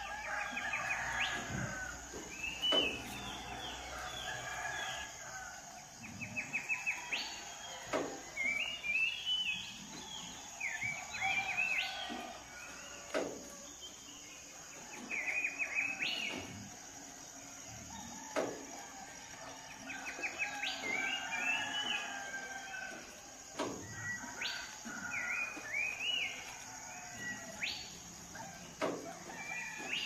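Village morning birdsong: several small songbirds chirping and calling in quick trills and sharp single notes, with roosters crowing among them. A steady high-pitched drone runs underneath.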